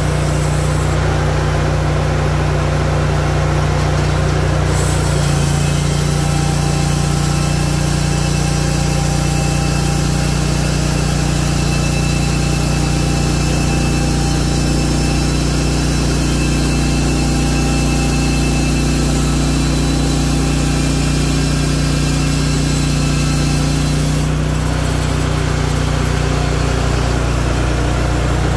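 Hudson Oscar 336 portable band sawmill running steadily under its engine. About five seconds in, a higher cutting noise joins as the band blade runs through the cherry log; it stops about four seconds before the end, when the blade clears the cut and the engine runs on.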